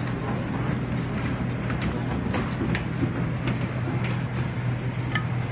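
Serving tongs and dishes giving scattered light clicks and clacks over a steady low hum.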